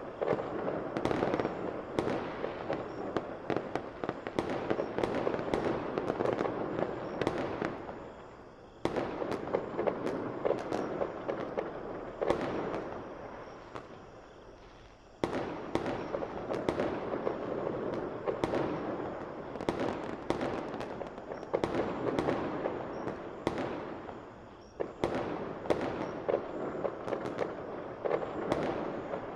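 Fireworks going off: a dense string of sharp bangs over continuous crackling. The sound stops abruptly about nine seconds in and again about fifteen seconds in, then starts up again.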